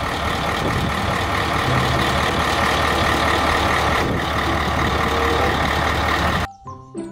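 Heavy diesel dump truck's engine running steadily while the tipper body is raised. The sound cuts off suddenly about six and a half seconds in, and bright children's mallet music starts.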